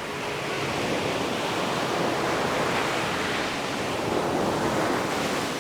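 Ocean surf: waves breaking and washing up a beach in a steady rush that swells about half a second in and eases near the end.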